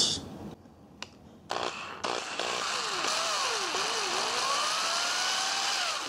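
Electric drill with a very small bit drilling short holes into the wooden guitar body along a crack in the neck pocket. A brief burst comes about a second and a half in, then the drill runs steadily from about two seconds on, its whine dipping and rising in pitch.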